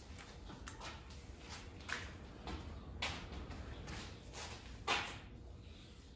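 Scattered light clicks, rustles and knocks of nylon ratchet straps and their metal hooks being handled around a dolly, with a sharper knock about five seconds in.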